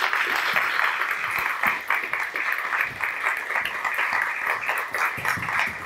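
Audience applauding, a steady stream of many hand claps.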